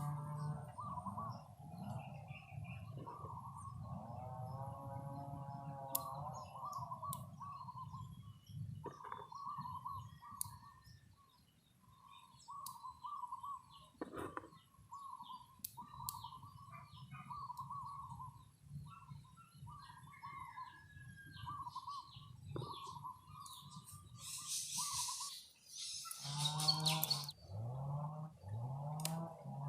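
Birds calling in a run of short repeated notes, with a farm animal's drawn-out calls near the start and again near the end. A few scattered sharp clicks sound in between.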